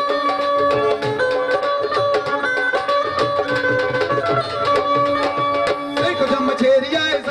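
Live Punjabi folk music played by a band: a keyboard melody in held, stepping notes over a steady, quick dhol drum beat, with no singing.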